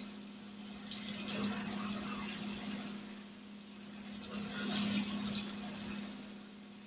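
Floured pork chops sizzling in hot grease in a cast-iron skillet as they are laid in: a steady frying hiss that swells twice, over a steady low hum.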